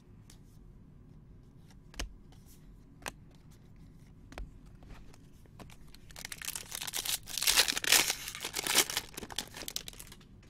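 A few light clicks of trading cards being handled, then about six seconds in a Bowman Jumbo foil card pack torn open, its wrapper crinkling loudly for about four seconds.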